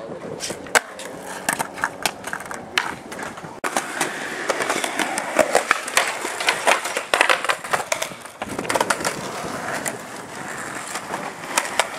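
Skateboards on concrete and a park bench: wheels rolling, boards clacking on landings and pops, and trucks grinding and scraping along the bench. A dense stretch of scraping and clatter runs from about four to eight and a half seconds in.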